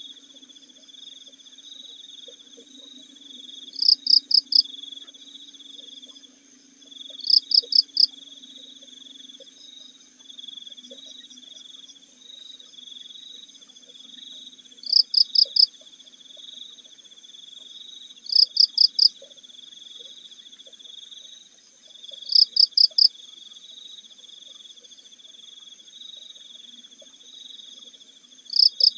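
Night insect chorus: crickets trilling steadily over a high insect drone. A louder cricket gives a quick group of four chirps every few seconds.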